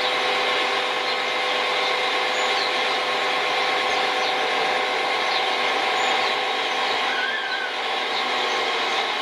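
Steady machinery drone with a constant hum running through it, and faint short high chirps above it.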